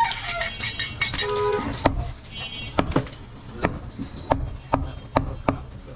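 Butcher's cleaver chopping goat meat on a wooden log chopping block: a run of sharp chops, about one or two a second, starting about two seconds in.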